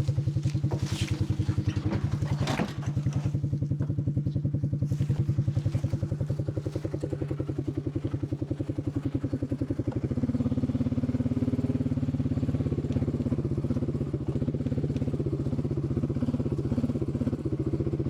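Farm vehicle engine running steadily, with a couple of knocks or clatters in the first few seconds, as empty apple bins are spread through the orchard. The engine note changes about ten seconds in.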